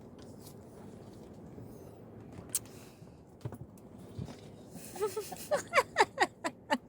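A person giggling: a quick run of short, high, falling bursts of laughter near the end, over low background noise and a few faint clicks.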